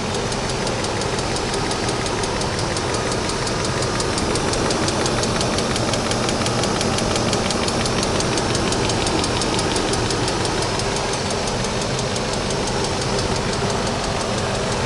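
BMW 740iL V8 engine idling steadily with a fast, even ticking knock from the cylinder head, a rattle whose cause the owner cannot identify.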